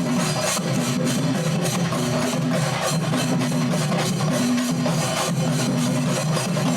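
Singarimelam, the Kerala percussion ensemble of chenda drums with elathalam hand cymbals, playing a fast, dense drumming rhythm that repeats in phrases about a second long.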